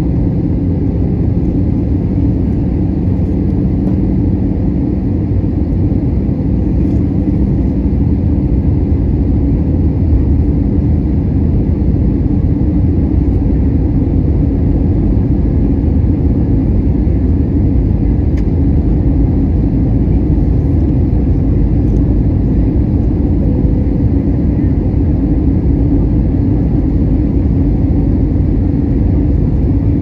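Steady cabin noise of an Airbus A320 in flight: a loud, even rumble of the jet engines and airflow over the wing, with a faint low hum in it.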